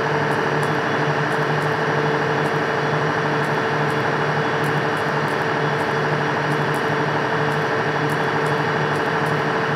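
Steady droning machine-like hum over even background noise, with a constant tone and a low band that pulses on and off.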